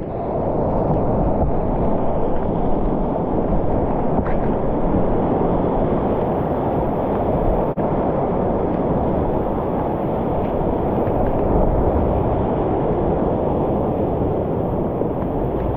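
Steady, loud rush of whitewater rapids around a kayak, with a brief dip about halfway through.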